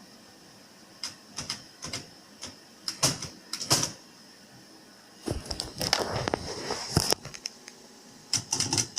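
Italian-made manual typewriter's mechanism clicking and clacking as it is handled, with a dense run of rapid ratcheting clicks about five seconds in as the carriage is slid to centre it.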